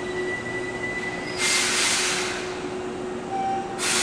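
Electric commuter train at the platform: a thin, steady high squeal, then two short, loud bursts of compressed-air hiss, one about a second and a half in and one near the end, with a brief lower tone just before the second.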